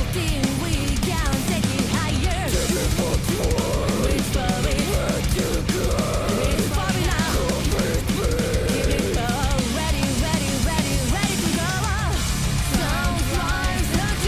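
Heavy metal song playing: distorted guitar riffing over pounding drums, with a female lead voice singing over the top.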